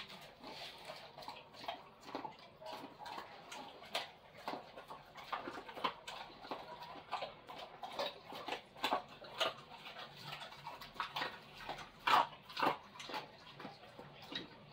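A dog eating, with irregular wet chewing, smacking and crunching sounds, loudest about twelve seconds in.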